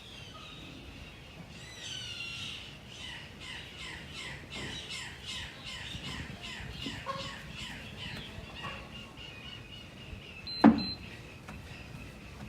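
A bird chirping, a fast run of short falling notes repeated several times a second, over a faint steady high tone. A single loud thump comes near the end.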